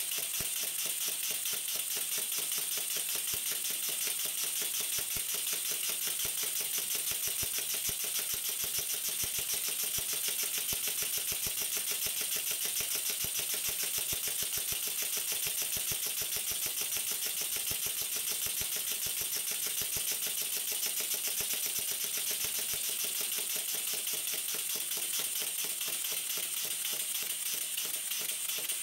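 Small model horizontal mill engine, built without piston packing or stuffing box, running steadily at speed. It gives a rapid, even ticking beat over a constant hiss.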